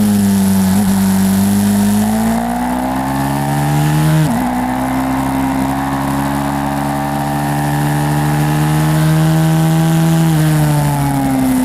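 Pit bike's small single-cylinder four-stroke engine under way. The revs climb, dip sharply for a moment about four seconds in, hold high, then fall away near the end.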